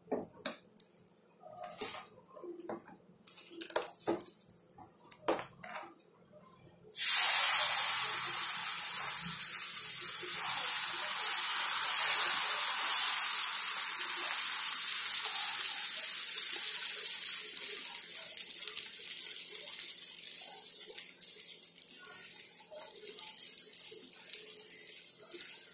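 A ladle clinking and scraping in a steel bowl of batter, then about seven seconds in a sudden loud sizzle as adai dosa batter is poured onto the hot tawa. The sizzle fades slowly as the batter is spread and cooks.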